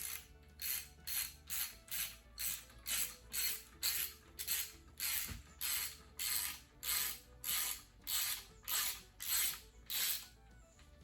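Socket ratchet wrench clicking on each swing of the handle, in quick regular strokes about two a second, as a fastener is run down.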